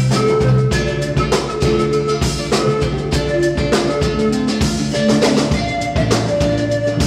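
Live Andean band music: a drum kit keeping a steady beat under an acoustic guitar and electric bass, with a panpipe melody of held notes on top.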